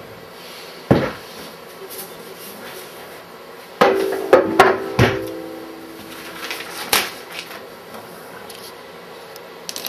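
Handling knocks and thumps as a ukulele is set down: a sharp knock about a second in, then a quick cluster of knocks about four seconds in that sets several of the ukulele's strings ringing for a couple of seconds, and another knock near seven seconds.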